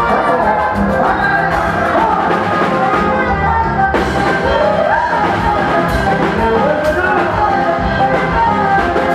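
Live band playing amplified dance music: horns, keyboard, electric guitars and drum kit with steady cymbal strokes, and a voice singing over it.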